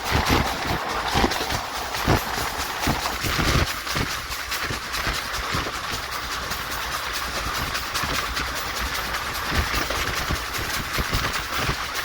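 Express passenger coach running along the track: a steady rush of noise with the wheels knocking over rail joints, the knocks coming thick in the first few seconds and fewer after that.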